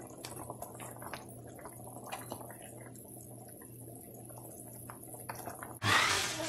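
Pot of oxtail stewing in browning sauce: scattered small pops and crackles of the simmering liquid as a wooden spoon stirs, over a low steady hum. Near the end a much louder rushing noise cuts in abruptly.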